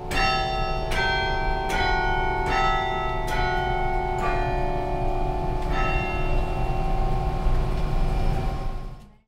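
Bells of the Knicker Carillon played from the clavier in a slow melody: about seven strikes in the first six seconds, each bell ringing on and overlapping the next, before the sound fades out quickly near the end.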